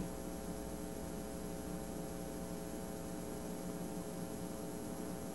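Steady low electrical hum with faint hiss and a thin high-pitched whine: background noise of the recording, with no other sound.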